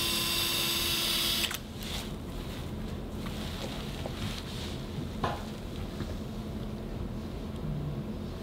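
Surgical power wire driver spinning steadily as it drives a guide wire into the tibia, then stopping about a second and a half in. A few faint handling clicks follow.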